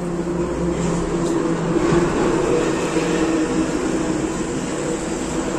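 A motor running with a steady hum, growing to its loudest about two seconds in and then slowly easing off.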